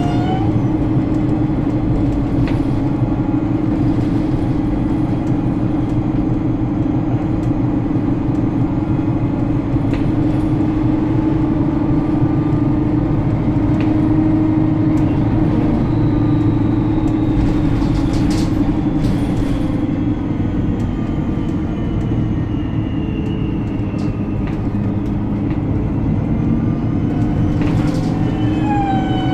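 Alexander Dennis Enviro 300 single-deck bus heard from inside while driving: a steady engine and road drone with rattles, and a high squeal that slowly falls in pitch through the middle. A few sharp knocks come about two-thirds of the way in, and a whine with several pitches glides down and settles near the end.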